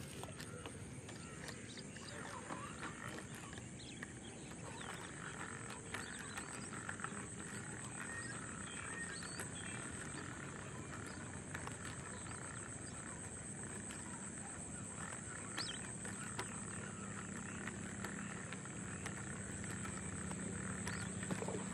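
Wetland ambience: a steady high-pitched insect drone over faint animal calls, with a few small clicks.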